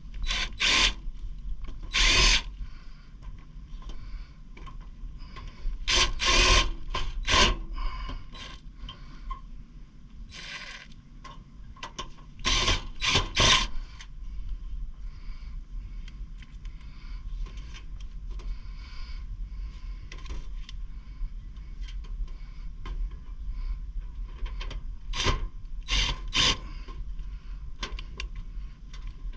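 Tool work with short, irregular bursts of scraping, clicking and rattling over a faint steady hum, with a few louder clusters of bursts.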